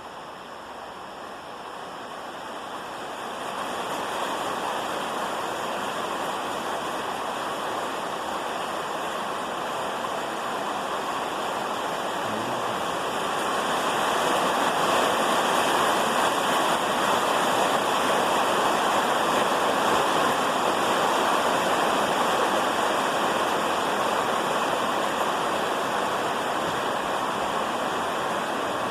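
Steady rain falling hard, swelling louder about three seconds in and again around thirteen seconds.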